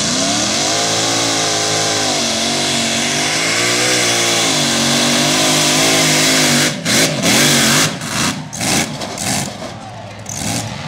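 Supercharged engine of a two-wheel-drive pulling tractor running flat out under the load of a pulling sled, its pitch wavering up and down as the front wheels lift. About seven seconds in the sound cuts in and out sharply several times, then drops away.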